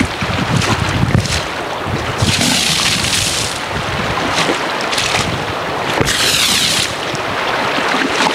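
Shallow river water rushing steadily, with wind buffeting the microphone. Twice, about two seconds in and again about six seconds in, a can-full of water splashes over a car's body with a hissing spray.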